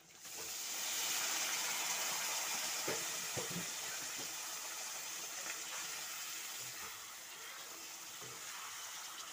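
Raw mutton pieces hitting hot oil and spice paste in a wok, sizzling: the hiss starts suddenly, is loudest in the first couple of seconds and slowly eases off. A few knocks of the metal ladle against the wok come about three seconds in.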